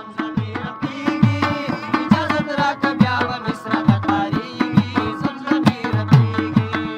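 Tabla played in a quick folk rhythm, its bass drum giving booming strokes that bend in pitch, over a plucked rubab melody.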